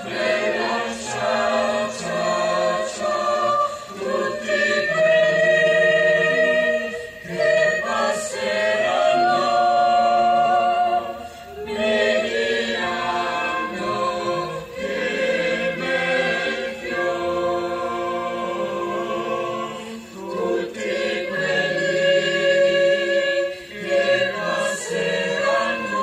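Youth choir singing several notes at once in long held phrases, broken by short pauses.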